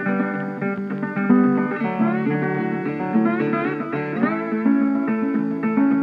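Background music: Americana-style acoustic guitar, with notes that slide in pitch.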